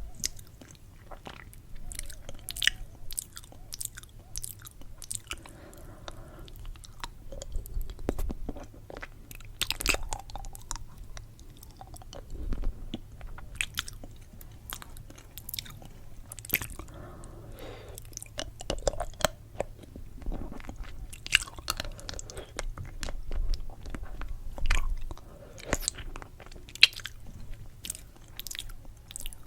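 Candy being chewed and crunched close to the microphone, with many sharp crackling clicks at irregular intervals.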